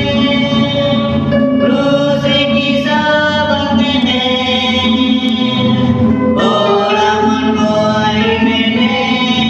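A small group of men singing a Christian hymn together from hymn books, with long held notes.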